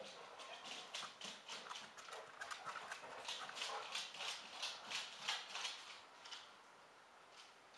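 Dogs' running footsteps: a quick, uneven run of light taps, several a second, that dies away about six seconds in.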